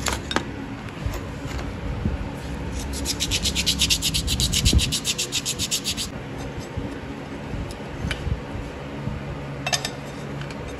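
A motorcycle brake pad rubbed quickly back and forth against a rough surface, a rasping scrape of about eight strokes a second for some three seconds. A few light clicks of the pad being handled come near the start and near the end.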